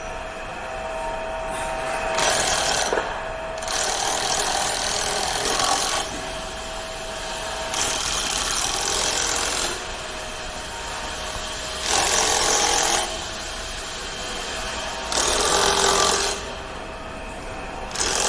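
Handheld power tool run in about six short bursts of one to two seconds each, fastening the bolts of a forming mold onto a wire-forming machine.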